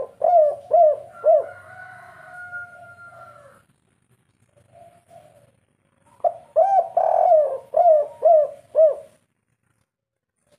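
Spotted dove cooing in its three-beat 'kuk 3' song type. A few short coos end in a long drawn-out note. After a pause of a couple of seconds comes a second run of about six quick coos.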